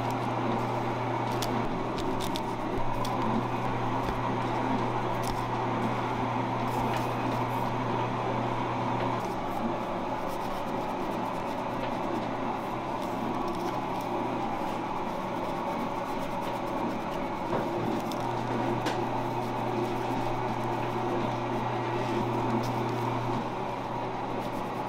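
Steady hum of kitchen machinery, with a low drone that drops back for a while in the middle and returns. Over it come small clicks and soft squishing from gloved hands handling fried donuts and a knife slitting them open.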